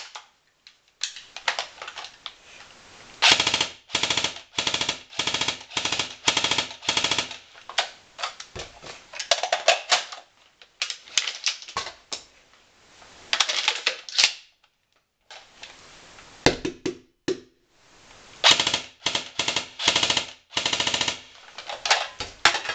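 G&P M4A1 airsoft electric rifle firing repeated bursts of rapid, sharp clacking shots, with short pauses between the strings, running on a low battery.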